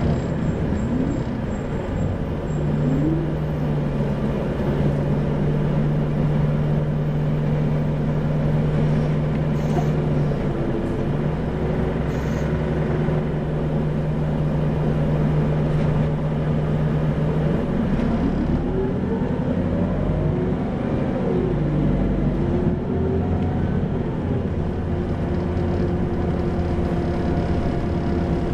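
Isuzu Erga (2PG-LV290N3) city bus diesel engine running with a steady hum; about two-thirds of the way in, its pitch rises and falls as the engine revs.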